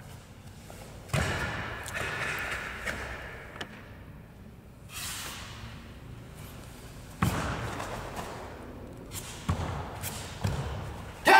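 Karate kata performed barefoot on foam mats: a few sharp thuds and snaps from stamped feet and the snapping karate gi, echoing in a large hall. A sudden loud sustained sound with several pitches starts right at the end.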